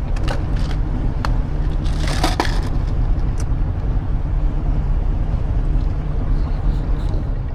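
Boat motor running under way with a steady low rumble, with a few sharp clicks and a short rushing noise about two seconds in.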